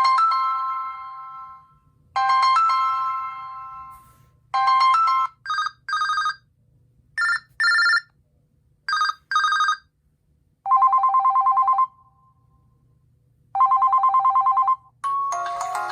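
LG G Flex D959 phone playing ringtones. First come two decaying electronic chimes, then several pairs of short beeps, then two bursts of a fast trilling ring like an old phone bell. A new, busier melody starts near the end.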